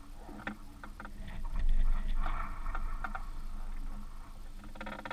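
Water slapping against the hull of a small aluminum fishing boat, with scattered knocks and clicks, a low rumble about two seconds in, and a brief louder burst near the end.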